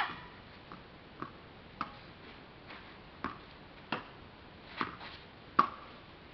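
Tennis ball rally: about seven sharp knocks of the ball off rackets and the court, spaced half a second to a second apart, the loudest about five and a half seconds in.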